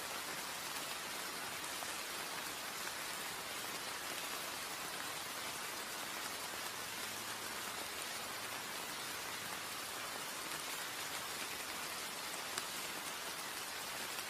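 Light, steady drizzle falling on wet ground: an even hiss. A single faint tick sounds near the end.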